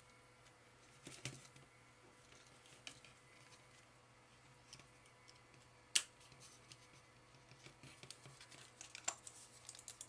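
Faint, scattered small clicks and taps of a plastic computer-mouse housing and its wire connectors being handled and fitted together, the loudest click about six seconds in. A quicker run of small clicks comes near the end.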